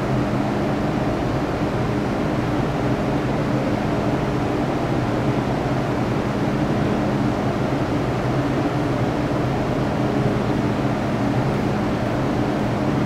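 Inside a Metro Cammell M-Train EMU (GEC GTO chopper stock) running through a tunnel at steady speed: a constant running rumble with a few steady low hum tones that hold their pitch throughout.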